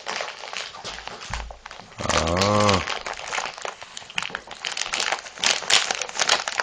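Crinkling and rustling as a dog noses and digs through the bedding on a sofa, the crackles getting busier toward the end. A short low vocal sound, rising and falling, cuts in about two seconds in.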